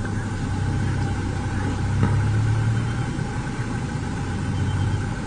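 An engine idling steadily, a low even hum that swells slightly about two seconds in.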